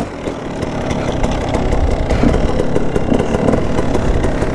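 Dirt bike engine running at low revs, a rough, uneven rumble that grows a little louder over the first second and then holds steady.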